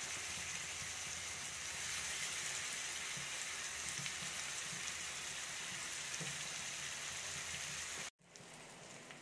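Masala-coated fish pieces sizzling in shallow oil in a frying pan, a steady hiss. It cuts off abruptly near the end, leaving a fainter hiss.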